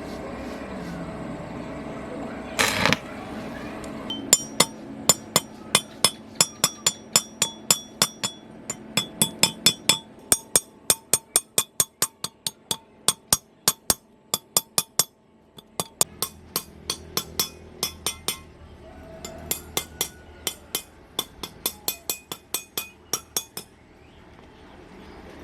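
Hammer striking metal in rapid runs of blows, about three a second, each blow with a short metallic ring. The hammering stops briefly twice. A single brief noisy burst comes shortly before the hammering starts.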